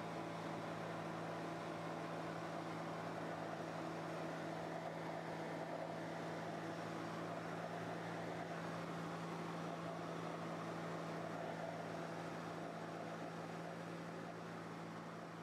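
Ultralight plane's engine and propeller heard from inside the cockpit in flight: a steady, even drone mixed with rushing air noise, easing down a little in level near the end.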